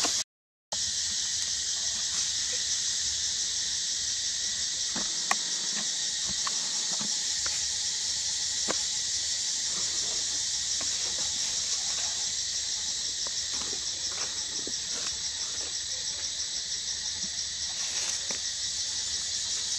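A steady, high insect chorus that shimmers without a break, with a few faint clicks. The sound cuts out briefly just after the start.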